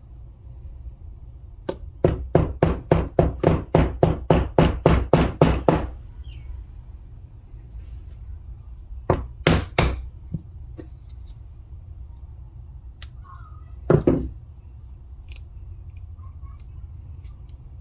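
Hammer blows seating a new ash handle in a hammer head: a rapid run of about fourteen knocks, roughly three or four a second, then a pause, three more blows and a single last one.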